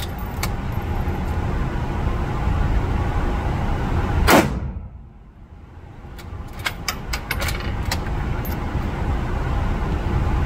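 .308 bolt-action rifle firing one shot about four seconds in, the loudest moment, with the background dropping away briefly after it. A couple of seconds later comes a quick run of metallic clicks as the bolt is worked up, back, forward and down to chamber the next round. A steady rumbling noise sits underneath throughout.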